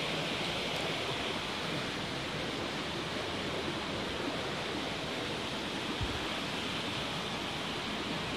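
Steady rush of running water in a small creek, with one faint low knock about six seconds in.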